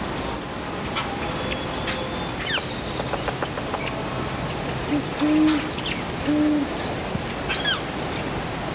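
An owl hooting three low notes, about halfway through, over a steady background hiss. Small birds chirp now and then.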